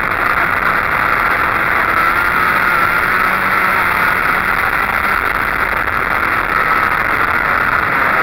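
Go-kart engine running hard at speed on track, a loud steady drone whose pitch shifts a little as the kart goes through the corners and down the straight.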